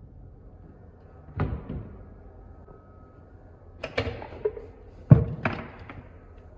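A series of knocks and thumps from objects being handled: a pair about a second and a half in, a cluster about four seconds in, and the loudest two a little after five seconds.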